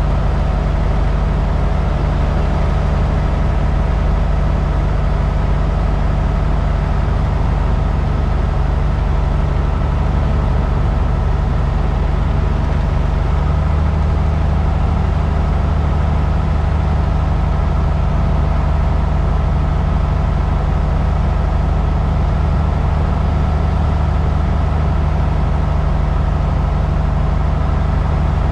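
Cessna 172's piston engine and propeller running steadily in flight, heard from inside the cabin. The low hum shifts slightly about halfway through.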